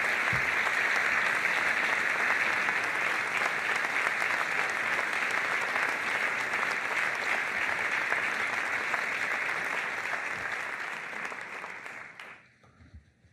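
Large audience applauding steadily, a dense patter of many hands clapping that dies away near the end.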